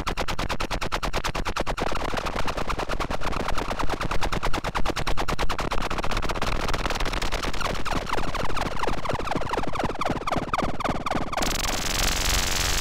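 iAbyssal iOS photo-synthesizer playing a fast, evenly spaced stutter of electronic pulses, its tone shaped as a hand moves over the iPad's front camera. From about halfway through, the pulses turn into repeated falling pitch sweeps, and near the end a bright hiss of white noise comes in on top.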